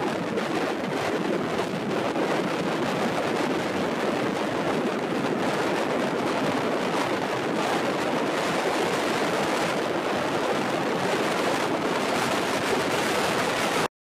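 Steady, unbroken rush of wind over the microphone mixed with lapping ripples on a shallow brackish lagoon.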